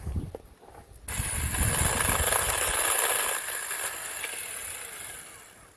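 Chainsaw cutting wood: it starts suddenly about a second in, runs hard for about two seconds, then winds down gradually near the end.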